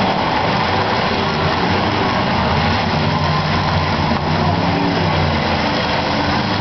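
Several demolition derby cars' engines running together, a loud, steady din with a low engine drone underneath.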